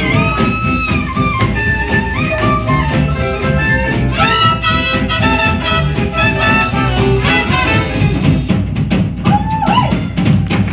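Swing band playing: saxophone and trumpet lines, with some notes bent in pitch, over drum kit and upright bass keeping a steady beat.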